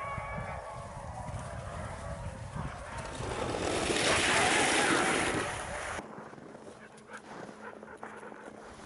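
Wind rumbling on the microphone outdoors, with a rushing swell of noise about four seconds in as a team of malamutes pulling a kick sled runs close past. About six seconds in it cuts to a much quieter outdoor sound with faint crunching.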